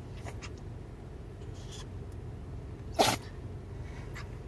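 A small spitz dog sneezing once, a single short sharp sneeze about three seconds in. It is one of a run of sneezes that the owner takes for a reaction after the dog's injections.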